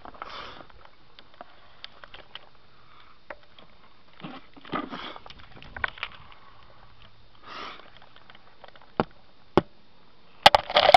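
Handling noise close to the microphone: scattered clicks and rustles, with three short breaths, and a quick cluster of loud clicks near the end.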